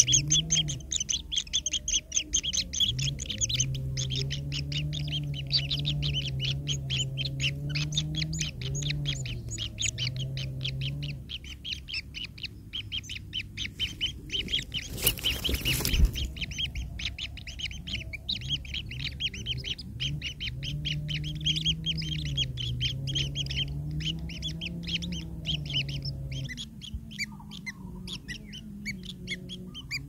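White-throated kingfisher nestlings begging: fast, high-pitched chirping that pauses briefly around the middle and fades near the end. A loud thump sounds about halfway through, and a low wavering drone runs beneath the chirps.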